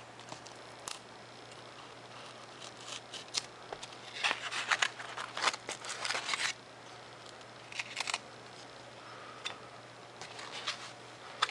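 Hobby knife blade scratching through a paper plan sheet, then paper rustling and crinkling as the cut-out piece and sheets are handled. Irregular scratchy strokes and light clicks, busiest about four to six seconds in.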